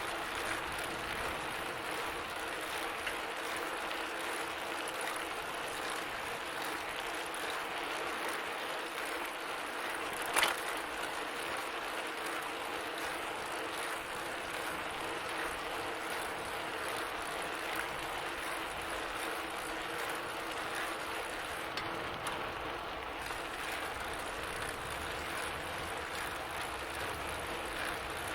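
Bicycle in motion: a steady mechanical whir of chain and freewheel with a ratcheting quality, and one sharp click about ten seconds in.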